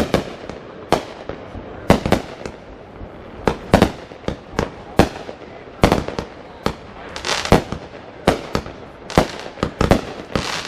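Fireworks going off in an irregular string of sharp bangs, about one or two a second, some trailing a brief smear of crackle or echo.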